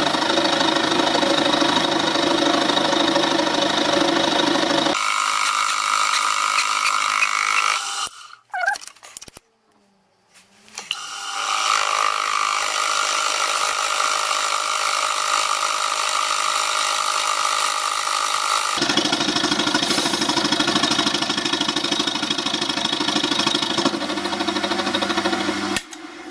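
Milling machine running with its cutter taking cuts across a solid cast-iron block, a steady machining noise with held tones. The sound changes abruptly about five and nineteen seconds in, and breaks off briefly from about eight to eleven seconds in.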